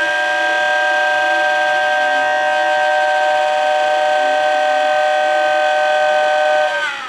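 Model train set's electronic horn sound, a loud chord of several notes held steady for about seven seconds, its pitch sagging as it cuts off near the end.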